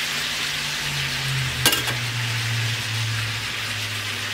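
Chicken and vegetables sizzling in oil in a wok while a metal spatula stirs them, with one sharp clink of the spatula against the wok about a second and a half in.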